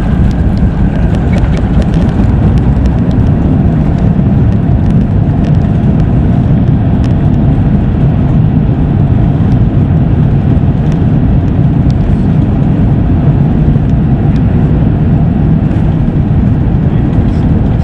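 Cabin noise of an Airbus A350-1000 rolling out on a wet runway just after landing, its spoilers raised: a loud, steady, deep rumble.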